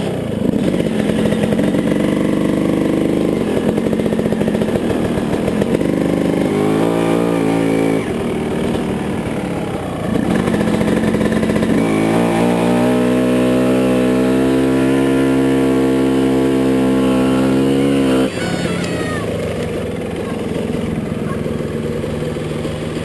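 Dirt bike engine running under throttle, its revs rising and falling, held high and steady for several seconds, then backing off sharply about eighteen seconds in.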